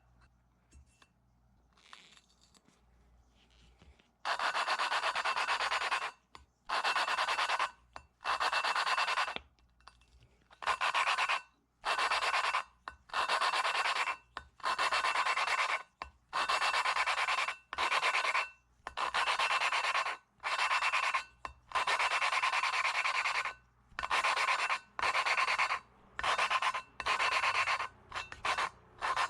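Valve being lapped into an H22 cylinder head's seat with lapping compound: a gritty, repeated rubbing in strokes of about a second each with short breaks, starting about four seconds in after a quiet start.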